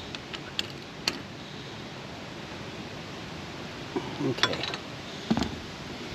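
A few sharp metal clicks and taps from hand tools being handled while a spark plug is fitted on a small mower engine, three in the first second and one more near the end, over a steady background hiss.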